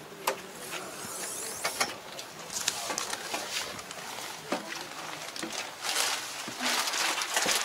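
Scattered knocks and clicks with rustling as a person climbs the steps into a tractor cab and moves about inside it, with a longer stretch of rustling near the end.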